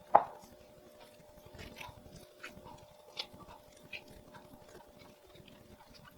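A dog's single short yelp just after the start, falling in pitch, followed by faint scattered clicks and taps.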